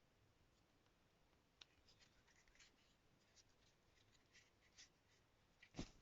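Faint handling noises: scattered light clicks and rustles of small objects being moved by hand, with a louder knock just before the end.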